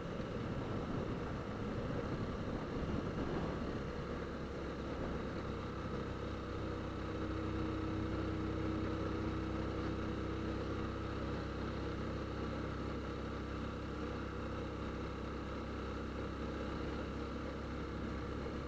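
Motorcycle engine running as the bike rides along a street, heard from the rider's seat, with wind noise on the microphone in the first few seconds. The engine then holds a steady note.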